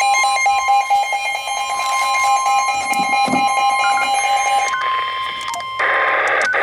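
Emergency Alert System attention signal: a loud, steady two-tone alarm with a harsh, buzzy edge, which stops about five seconds in. A voice begins reading the warning near the end.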